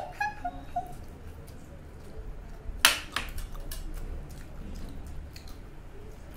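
Children eating noodles with their mouths straight from steel plates: slurping, chewing and lip-smacking noises with scattered small clicks, and one louder, sudden noisy sound about three seconds in.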